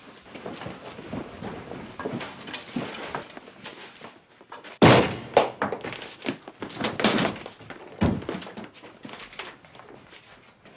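A door being forced open: a loud crash about five seconds in, followed by several more heavy thuds and bangs, with lighter knocks and movement before it.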